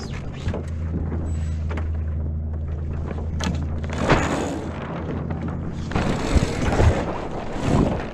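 A steady low drone under water sloshing and wind noise aboard a Viper F16 sailing catamaran. The drone stops about six seconds in, and a few hard thumps and knocks on the boat follow.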